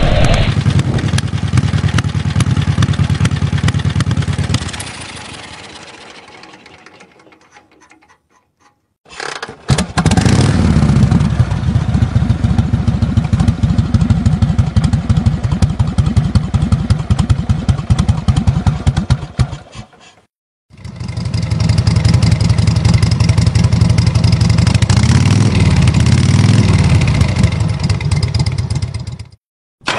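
Harley-Davidson V-twin motorcycle engine running with an even pulsing idle that dies away after a few seconds. About nine seconds in it starts again and idles, drops out briefly, then runs on with a rev up and back down near the end.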